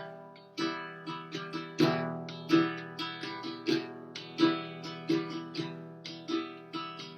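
Acoustic guitar strumming chords in a steady rhythm, an instrumental passage between sung lines of a song.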